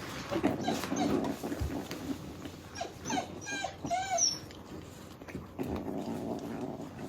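Kittens meowing and crying, excited at the sight of food, with a run of short, high, rising-and-falling meows about three to four seconds in.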